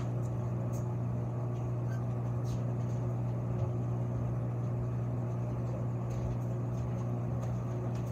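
Room tone: a steady low hum, with a few faint ticks.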